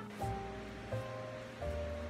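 Background music: sustained chords over a low bass note, changing about three times, with a soft even hiss beneath.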